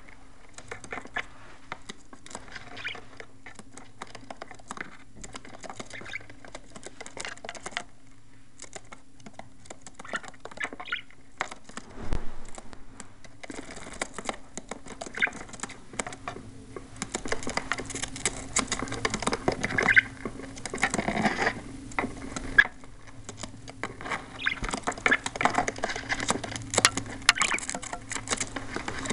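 Pet budgies moving about: many small clicks, scratches and pecks of feet and beaks, busier in the second half, over a steady low hum.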